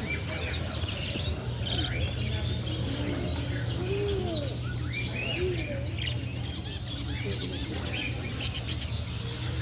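Many caged birds chirping and calling at once, short rising-and-falling calls overlapping one another over a steady low background hum.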